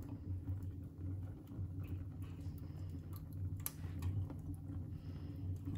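Wood fire crackling in the open firebox of a wood-fired hot water tank: scattered small pops and snaps, with one sharper snap a little past the middle, over a low steady rumble.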